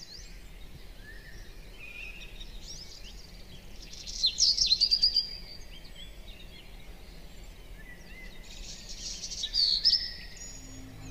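Birds chirping and singing: scattered high calls throughout, with two louder bursts of rapid chirps about four seconds in and again near the end.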